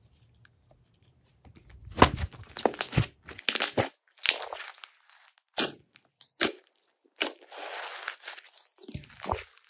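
Slime being squished and stretched by hand, with sticky crackles and pops as trapped air escapes. The sounds come in separate bursts after a quiet second and a half, with one longer crinkling stretch near the end.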